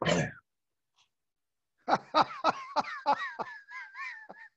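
A man laughing in a run of short, rhythmic pulses that starts about two seconds in and lasts about two and a half seconds, heard over a video-call connection.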